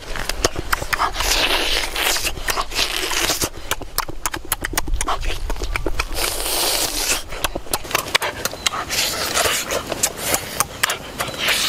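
Close-miked eating: chewing, lip smacking and wet clicks as roasted meat is bitten and torn, with several stretches of slurping and sucking.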